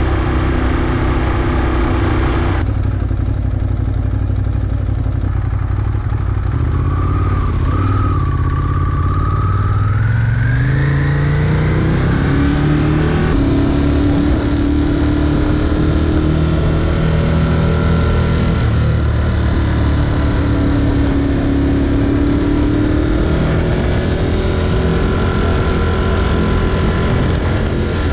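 Ducati Monster 821's L-twin engine with an Akrapovič exhaust running under way. Its pitch rises as the bike accelerates about a third of the way in, then it settles to a steady cruise.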